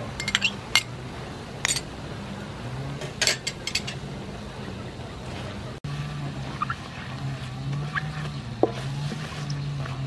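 Metal spoon clinking sharply and repeatedly against a small bowl and a metal wok as oyster sauce is scraped in, then a wooden spatula stirring minced pork in the wok.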